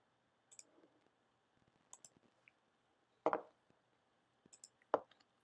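A few scattered computer mouse clicks, with two louder ones a little past the middle and near the end.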